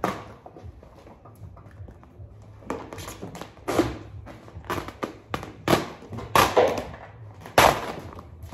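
A large sheet of glossy vinyl wrap film crackling and rustling in a run of irregular bursts as it is held up and shifted against a car door, the loudest crackle near the end.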